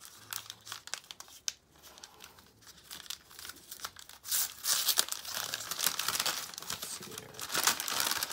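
Brown kraft packing paper crinkling as hands unwrap an item from it: scattered light crackles at first, growing into denser, louder crumpling from about four seconds in.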